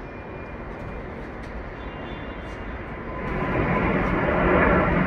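Twin-engine jet airliner climbing out after take-off: a steady jet roar that grows much louder about three seconds in.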